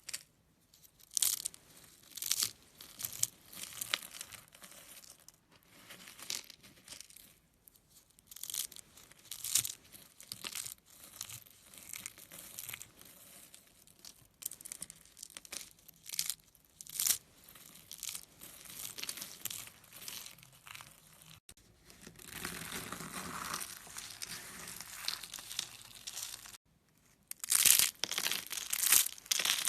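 Something crinkly being squeezed and crushed by hand: irregular crackling and crinkling crunches, some much louder than others. Past the middle the crackling runs denser and more continuous; after a brief break near the end it returns louder.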